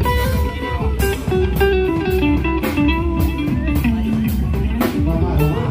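Live band sound check: an electric guitar plays a stepwise melodic line that falls in pitch, over bass and drum kit.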